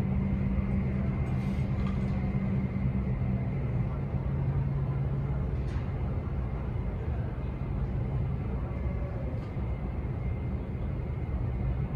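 Aircraft pushback tug's engine running hard under load while its wheels spin on the glycol-slick ramp, unable to push the Boeing 777. It is a steady low drone whose pitch steps down about three and a half seconds in.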